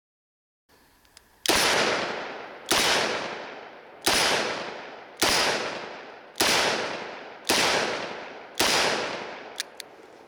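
Smith & Wesson 586 L-Comp, a seven-shot .357 Magnum revolver, fired seven times at an even pace about a second apart, each shot echoing and fading before the next. All seven rounds go off, with no misfire from the light primer strikes it had been having.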